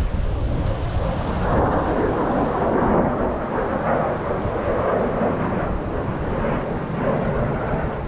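F-16 fighter jet flying past overhead, its jet engine heard from the ground as a steady, deep rushing rumble with no clear tone.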